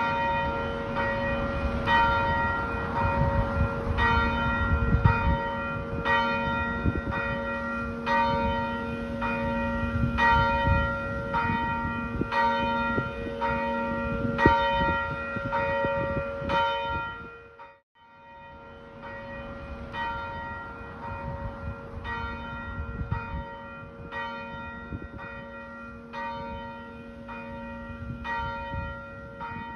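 Church bells ringing, strikes following one another at about two a second, with a low rumble beneath them in the first half. The ringing cuts out briefly a little past halfway and then starts again.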